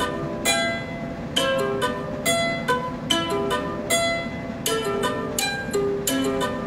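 Music: a light tune of short plucked notes, a few to the second.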